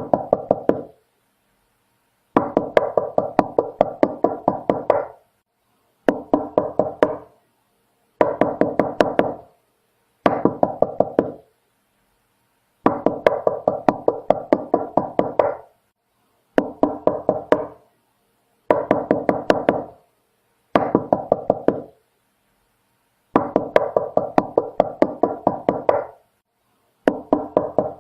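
Knocking on a door in repeated bursts of quick knocks, each burst lasting one to three seconds, with short pauses of silence between them.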